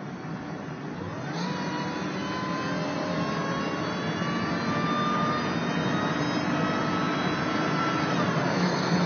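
Compact pickup's engine pulling hard on the highway, heard from inside the cab, getting louder over the first few seconds. A whine rides on the engine note: it jumps up in pitch about a second in, climbs slowly with the revs, then drops near the end.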